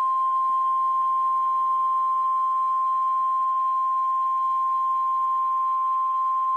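NOAA Weather Radio warning alarm tone: a single steady, loud 1050 Hz tone, the signal that an emergency alert broadcast follows.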